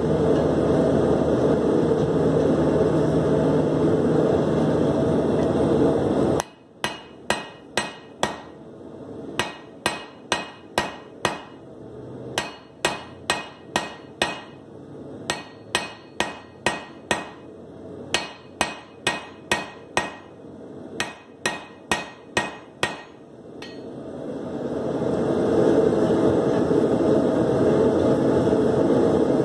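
A hammer strikes a red-hot steel bar on the anvil in runs of ringing blows, about two to three a second, with short pauses between runs as the bar is turned 90 degrees: drawing out the bar. A steady, loud forge roar fills the first six seconds and comes back near the end while the bar reheats.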